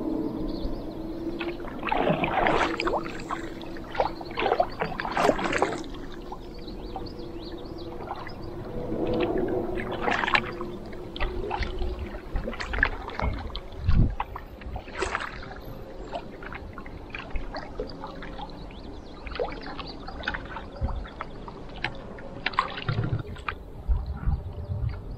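Double-bladed paddle stroking through calm river water beside a Hornbeck canoe: a splash at each blade entry, with water dripping and trickling off the blades between strokes.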